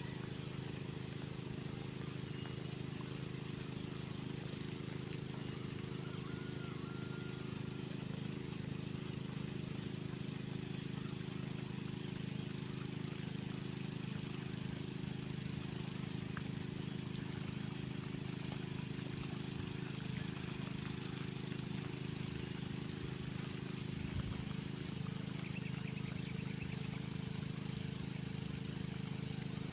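Artificial-rain sprinkler irrigation spraying water over plants steadily, an even hiss of water over a steady low hum.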